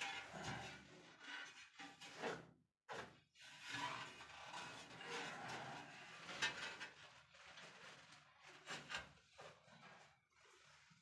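Faint rubbing and scraping of a ceramic wall tile being handled and pressed onto a wall of combed tile adhesive, with a few light clicks of tile on tile.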